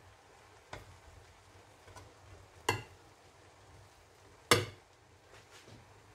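A metal spoon clinking against a ceramic plate and a steel pot as rice is dished out. There are a few light taps, then two sharp clinks nearly two seconds apart, the first ringing briefly.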